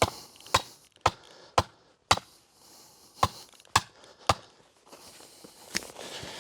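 Sharp blows driving a 600 mm peg into the ground. Five strikes come about two a second, then after a pause three more, and a single last strike near the end.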